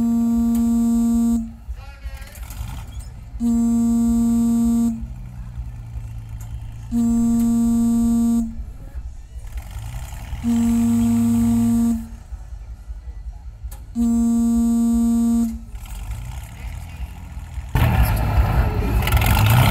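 A horn sounding five times, each steady blast about a second and a half long, evenly spaced about three and a half seconds apart, over a low background rumble. Near the end a vehicle engine gets louder.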